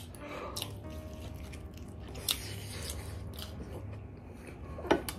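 Close-up eating sounds: biting and chewing fried chicken leg pieces, with a few sharp crunchy clicks scattered through, the loudest near the end.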